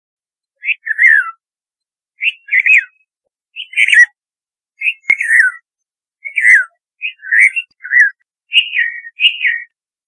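Red-vented bulbul calling: about nine short phrases of two or three clear notes, most of them sliding down in pitch, repeated every second or so with silence between.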